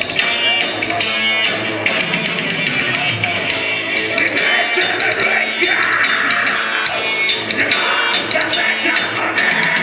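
Black metal band playing live: distorted electric guitars and bass over fast, dense drumming.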